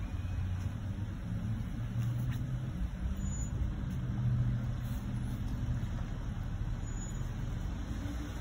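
Chrysler Pacifica minivan's engine running at low speed as the van reverses slowly, a steady low hum and rumble.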